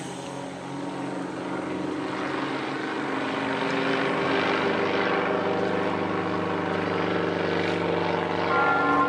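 Propeller aerobatic plane's piston engine running, its note shifting up and down in pitch as the plane manoeuvres. Near the end, bell-like ringing tones come in.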